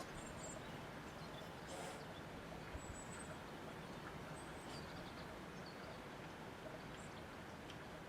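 Steady outdoor wind, a low rushing noise, with a few faint, brief high bird chirps now and then.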